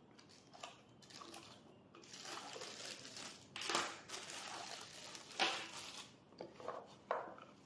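A product box being opened and its contents handled: crackling packaging and paper, with a few sharper rustles and clicks.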